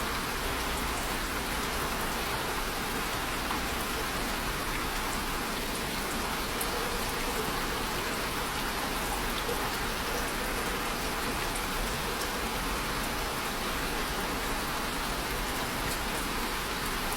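Steady rainfall pattering on a surface, an even wash of rain with occasional faint drop ticks.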